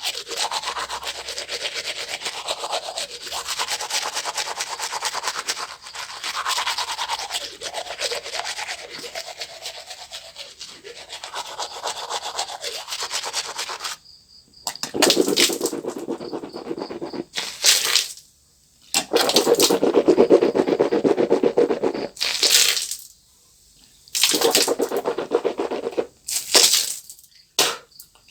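A manual toothbrush scrubbing teeth: a fast, scratchy, continuous brushing for about the first half. It stops abruptly and gives way to rinsing, with water swished in the mouth in several separate bursts and short pauses between them.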